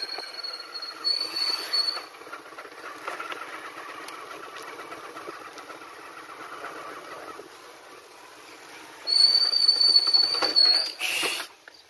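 Motorcycle riding with wind and road noise. Its brakes give a high-pitched squeal briefly at the start, and again, louder, for about two seconds near the end as the bike slows to a stop.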